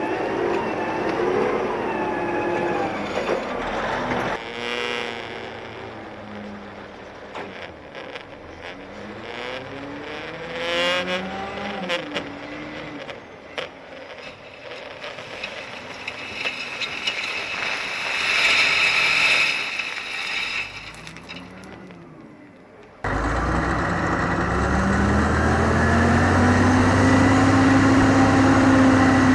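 Diesel engine of a CAT 988A wheel loader working, its pitch rising and falling as it revs up and down, with occasional clanks. About 23 seconds in the sound cuts abruptly to a louder heavy diesel engine that climbs in pitch and then holds steady.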